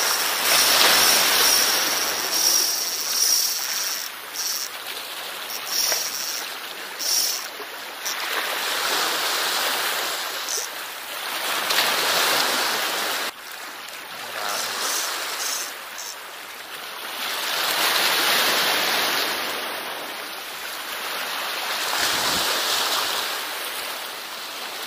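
Small sea waves washing and breaking over shoreline rocks, the surf swelling and ebbing every few seconds.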